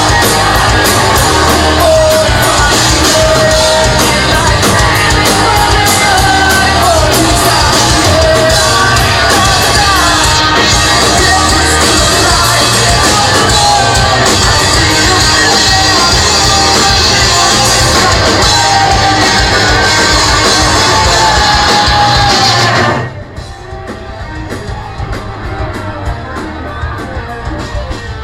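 Live rock band playing loud, with singing and shouted vocals over guitars and drums, in a large hall. About 23 seconds in the full band cuts off abruptly and a quieter guitar part carries on.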